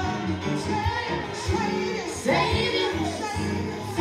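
Gospel song with singing over a steady beat and bass.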